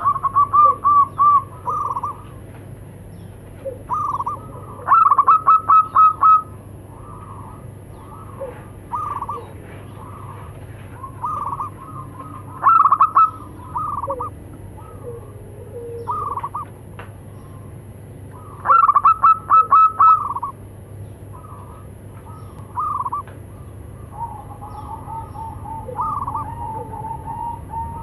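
Several zebra doves (perkutut) cooing in answer to one another. Each loud call is a rapid run of short, clipped coo notes, and these come every several seconds, with softer calls from other doves in between. A faint low hum runs underneath.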